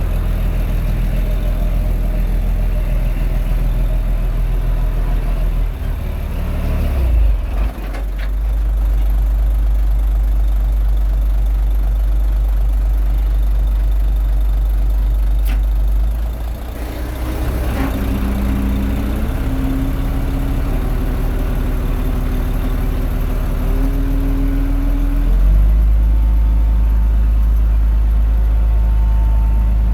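Komatsu D21A bulldozer's diesel engine running under changing load, its pitch rising briefly about seven seconds in. A higher whining tone steps up in pitch for several seconds past the middle, and the engine gets a little louder near the end.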